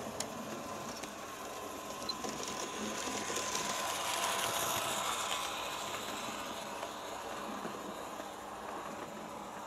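Märklin 3369 HO model of the ÖBB class 1118 electric locomotive, fitted with a high-performance motor and ball bearings, running light on Märklin M-track: a steady motor whir with the wheels rattling over the metal track, growing louder as it passes about four seconds in and then fading.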